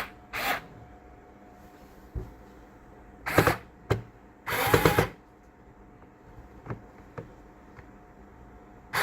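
Fanttik S1 Pro cordless electric screwdriver's motor whirring in short bursts as it drives a screw, four times, the longest about half a second, with a couple of small clicks in between.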